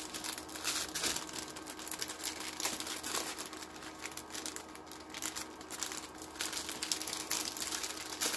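Packaging of a diamond painting kit crinkling in many short crackles as it is handled, over the steady hum of an Air Buddy dryer running in the background.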